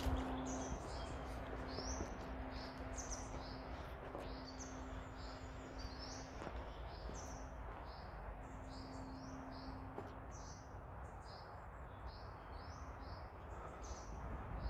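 Woodland songbirds chirping, many short high notes repeated throughout, over a low background noise with a faint low hum that comes and goes.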